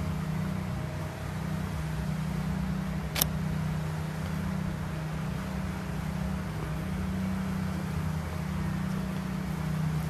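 Steady low mechanical hum over a faint even background noise, with one sharp click about three seconds in.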